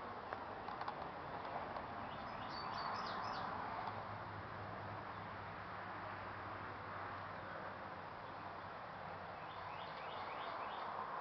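A songbird singing a short, quick run of high notes about two and a half seconds in and again near the end, over a steady outdoor background hiss and low hum.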